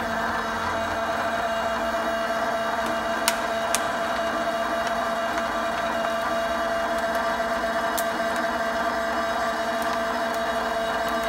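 Hydraulic press running steadily with a constant hum as its ram comes down onto a plastic water bottle and begins crushing it. A couple of sharp clicks come about three seconds in, and another near the end.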